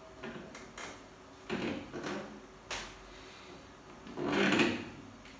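Handling noises at a desk: a few short knocks and scrapes, a sharp click, then a louder rustling scrape near the end, as of something being moved or opened.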